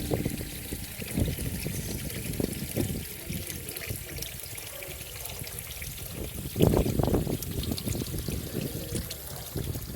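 Water from a stainless steel cascade falling into a garden pond: a steady trickle with irregular splashes, briefly louder about six and a half seconds in.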